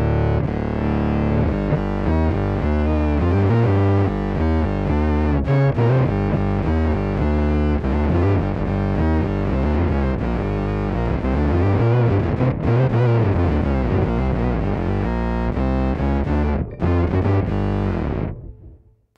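Electric bass played through an MXR Poly Blue Octave pedal with its fuzz engaged: a distorted bass line with added octave voices, shifting notes throughout, which stops abruptly about a second before the end.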